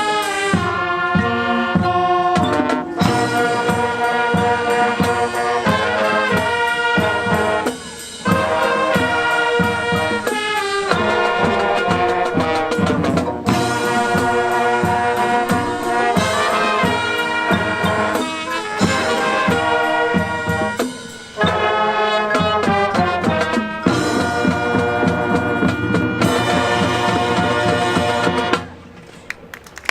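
High school marching band playing: brass section holding loud chords over a steady drum beat from the drumline. The music cuts off sharply about a second before the end.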